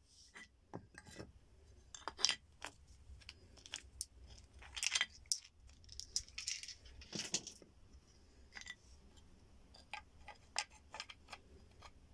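Hard bone pieces, a bone blade and a bone handle, clicking, knocking and scraping against each other as the blade is fitted into the handle: an irregular string of sharp clicks with a few longer scrapes, loudest about two seconds in.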